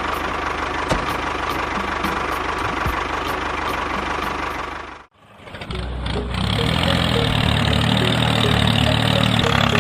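A small engine or motor running steadily. It cuts off sharply about halfway through, and about a second later a fuller running sound with a steady low hum takes over.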